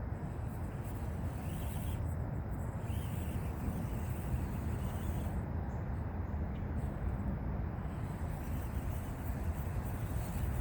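Axial SCX24 Deadbolt mini RC crawler's small electric motor and gears running as it crawls up loose slag rock, over a steady low rumble.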